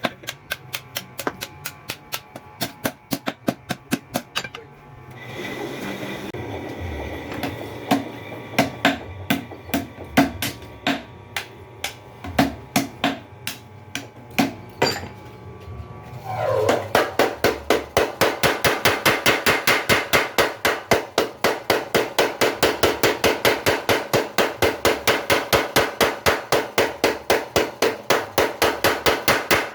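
Mechanical blacksmith's power hammer striking in a regular rhythm, about three to four blows a second. For a while the blows turn slower and uneven over a steady hum, then a little past halfway the hammer settles into a louder, faster, even run of blows.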